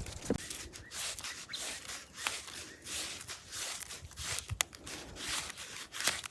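Twine being wound by hand onto a small stick: a run of short, hissy rubbing strokes with a few small clicks.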